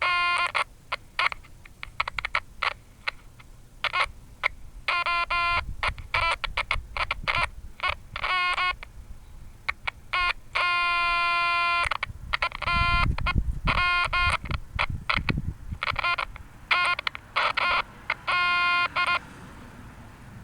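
Buzzing electronic tone from a small transistor radio's speaker, cutting in and out in many short bursts as contact is made and broken, with one longer steady stretch past the middle. Low wind rumble joins in briefly after that.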